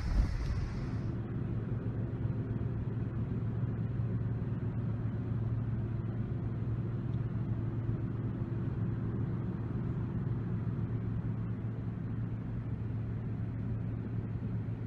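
Steady low rumble with a droning hum.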